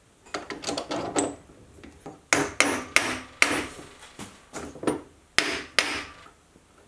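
A run of sharp metal knocks and clunks, about a dozen over six seconds and loudest in the middle and near the end, from a Sieg C3 mini lathe's cast iron tailstock being handled on the lathe bed.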